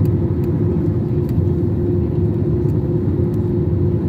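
Steady in-flight cabin noise of an Airbus A321-200 heard from a window seat over the wing: a low rumble of engines and airflow with a steady hum.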